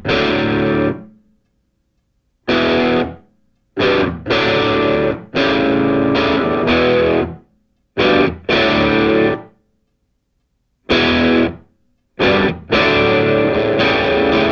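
Background music: distorted electric guitar chords played in stop-start bursts, each cut off abruptly into silence.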